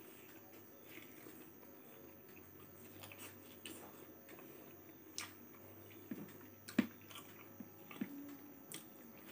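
Close-up mouth sounds of a person chewing food, with wet smacks and scattered sharp clicks; the loudest comes about two-thirds of the way through.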